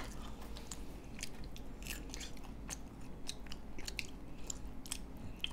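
People chewing chocolate, with many short, crisp clicks and crunches scattered throughout.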